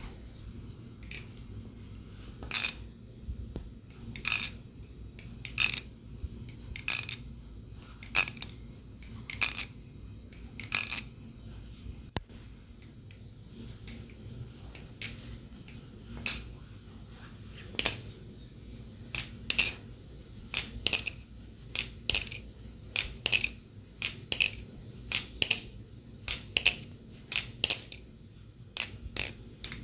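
Glidr Antarctic balisong trainer being flipped: sharp metal clacks of the handles and tang pins striking. The clacks come a second or more apart at first, then quicker and closer together in the second half.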